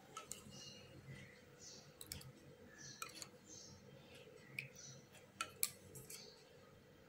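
Scattered faint clicks and taps of a plastic spoon against a steel bowl and paper cups as beetroot indicator solution is spooned out.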